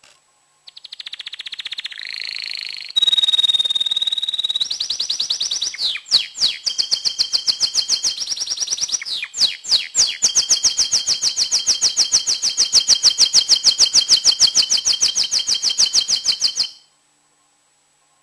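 Domestic canary singing a long, loud song: quick runs of repeated notes, a held whistle a few seconds in, then a long fast trill that stops abruptly shortly before the end. It is an excited male's breeding song, the kind used to bring hens into breeding condition.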